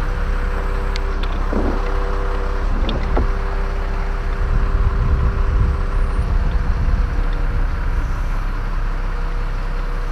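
Aerial lift's engine running with a steady hum and a whine as the boom raises the basket. A few faint knocks come in the first three seconds, and one tone of the whine drops out partway through.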